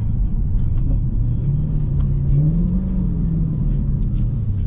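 Dodge Hellcat's supercharged 6.2-litre V8 heard from inside the cabin, droning at cruise, then rising in revs as it picks up speed about a second and a half in before easing back off near the end.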